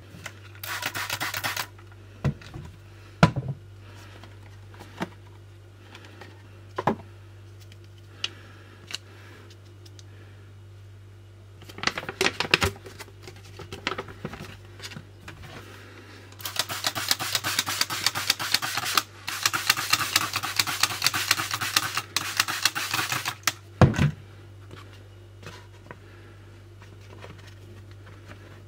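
Small objects and packaging being handled: scattered clicks and knocks, with a short spell of rapid dense ticking and rustling at the start and a longer one of about seven seconds in the second half. A steady low hum lies underneath.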